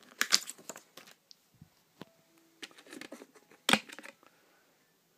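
Paper inserts rustling as they are handled, then scattered handling clicks and one sharp click about three-quarters of the way through as a Blu-ray disc is pried off the plastic hub of a metal steelbook case.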